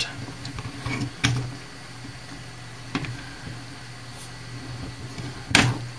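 Hands handling the plastic housing and wiring of a cordless hand mixer while disconnecting its charger-port lead: a few sharp plastic clicks and taps, the loudest near the end, over a steady low hum.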